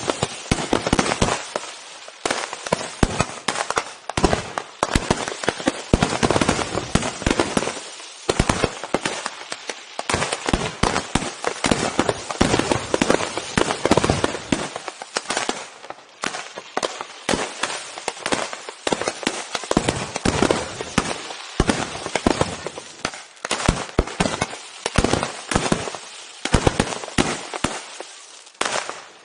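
Aerial fireworks display by Pirotecnia Ricardo Caballer (RICASA): a dense, continuous barrage of shell bursts and crackle, several sharp reports a second.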